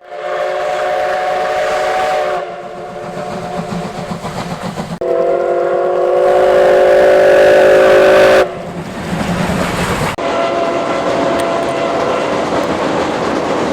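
Steam whistle of the C57 180 steam locomotive sounding two long, loud chord blasts, with the exhaust beat chuffing in between. After about ten seconds it gives way to a fainter whistle over the running noise.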